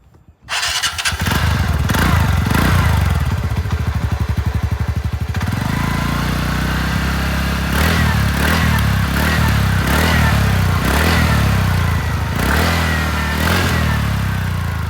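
A TVS Ntorq 125 BS6 scooter's single-cylinder 125 cc engine starts about half a second in and idles for a few seconds through its stock exhaust. It is then revved in a series of short throttle blips, with a deep, bassy note.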